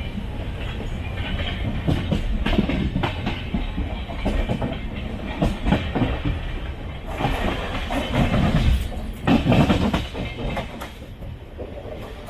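Passenger train running on the rails: a steady low rumble with irregular clicks and knocks of the wheels over rail joints, louder for a few seconds in the middle and easing near the end.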